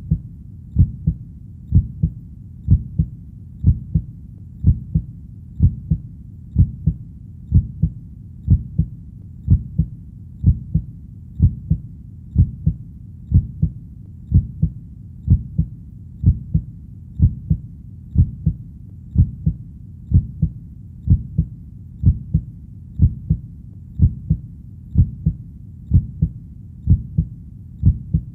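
Heartbeat, a steady double thump (lub-dub) about once a second, low in pitch, over a faint continuous low rumble.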